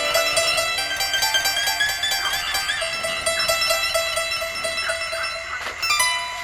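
Background music of plucked strings: a short note repeating steadily under a melody that slides in pitch, in a traditional style.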